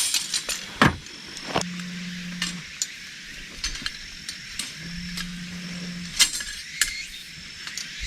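Scattered light clicks and clinks of objects being handled, with a low steady hum that comes and goes three times, each lasting about a second.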